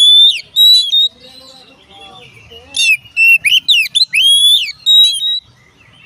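Oriental magpie-robin (kacer) singing loud, clear whistled phrases of sharply rising and falling notes, in two bursts with a pause of about a second and a half between them.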